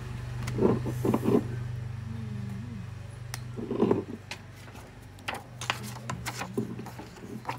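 Clicks, taps and short scraping bursts from handling a smartphone and prying at its panel edge with a piece of paper, over a steady low electrical hum.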